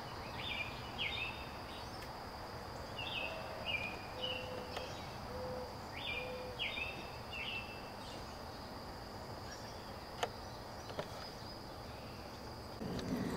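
Outdoor ambience: a steady high insect drone, with a bird calling in short chirps, in groups of two or three every couple of seconds. A few faint low hoots sound midway, and there is a single click near the end.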